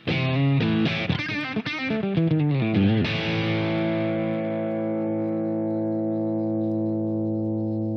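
Background music on guitar with effects: a quick run of notes, then a held chord from about three seconds in that rings on and slowly fades.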